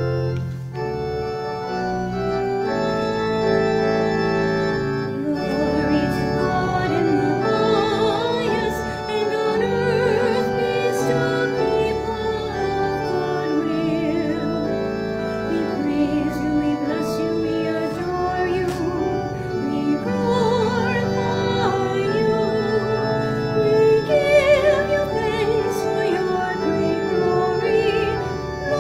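Church organ playing held chords under a singer with a wide vibrato: a sung part of the Mass.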